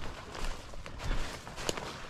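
A person walking through field cover: irregular footsteps and rustles.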